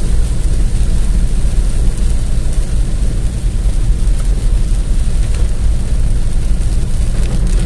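Heavy rain drumming on a car's roof and windscreen, heard from inside the cabin over the steady low rumble of the car driving on the wet road.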